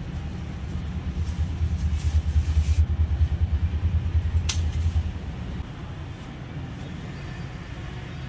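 A low, uneven rumble, loudest from about one to five seconds in, with a sharp snip of pruning shears cutting a plant stem about four and a half seconds in.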